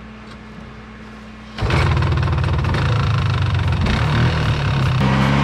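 Polaris Xplorer ATV engine running. About a second and a half in it gets suddenly much louder as the throttle is opened, then runs on steadily.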